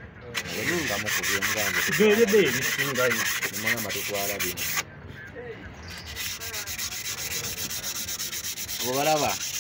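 Bare hand rubbing and wiping the inside of a diesel engine's cylinder bore and the head gasket on the block, skin scrubbing on metal in quick repeated strokes. It eases off briefly about five seconds in, then carries on.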